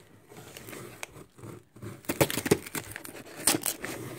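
Hands handling a sealed roll of silver coins and its wrapping: light rustling, then a run of sharp clicks and taps from about two seconds in.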